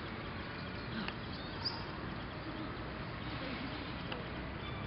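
Dry fallen leaves rustling as a toddler sitting in a deep layer of them shifts and reaches down into the leaves, over a steady outdoor background.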